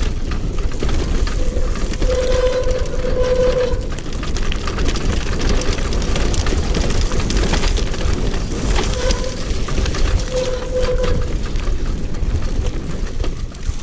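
Four-wheeled all-terrain wheelchair rolling fast downhill over a rocky dirt track, its wheels and frame rattling over the stones with a heavy rumble. Twice a steady squeal rises over the rattle, about two seconds in and again around nine seconds in, typical of the disc brakes being applied on the descent.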